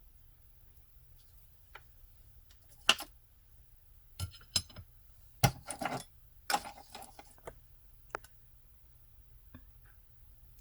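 Scattered clicks and light knocks of small hard objects being picked up and set down on a tabletop, a cluster of them in the middle.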